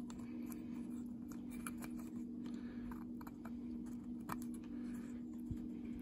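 Small clicks and rustles of fingers handling a multimeter circuit board and working the wire leads of a replacement glass fuse into its holes, over a steady low hum.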